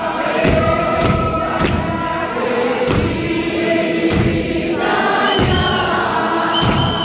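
Church congregation singing a Setswana hymn together without instruments, unison held notes, with sharp thumps keeping the beat about once a second.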